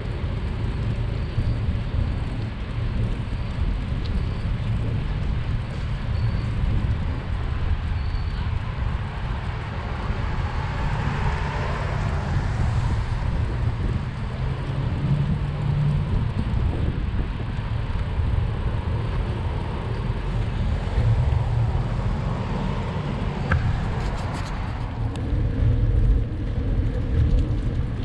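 Steady low rumble of wind and moving-bicycle noise on the camera's microphone, with car traffic on the street and a car passing about a third of the way in.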